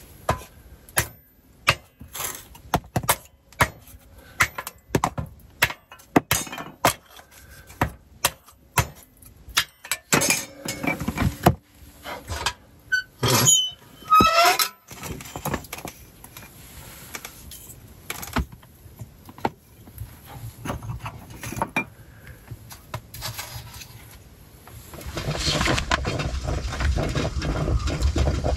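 Metal cookware being handled, with a long run of sharp clinks and knocks and a few brief squeaks about halfway through. From about 25 s in, a steady bubbling hiss as a stovetop percolator perks.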